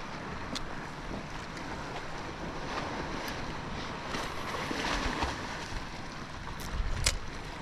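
Small waves lapping against a kayak's hull, with wind on the microphone and a few light clicks and knocks; the sharpest click comes about seven seconds in.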